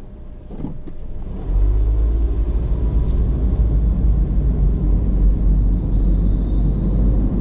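Car cabin noise as the car pulls away from a stop: quiet at first, then from about a second and a half in a loud, steady low rumble of engine and tyres on the road.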